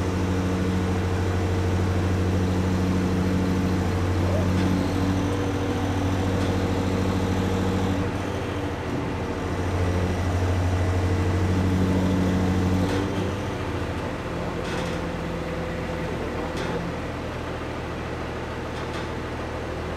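A crane's diesel engine running with a steady low drone while it holds a lattice mast section on the hook; it eases off a little about thirteen seconds in.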